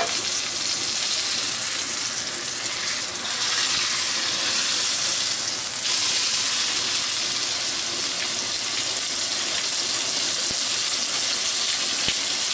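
Venison backstrap searing in hot butter in a stainless-steel skillet: a steady sizzle that swells about three seconds in, with a few faint clicks near the end.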